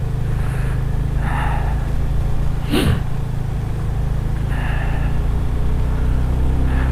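Motorcycle engine running steadily at low revs, with wind and tyre hiss on a wet road. A short click with a quick falling sweep about three seconds in.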